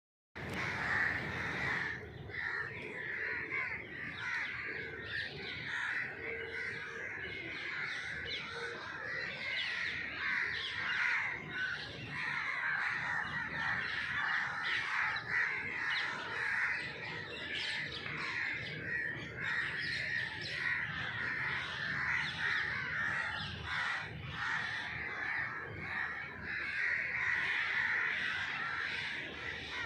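Many crows cawing at once, a dense, continuous chorus of overlapping calls.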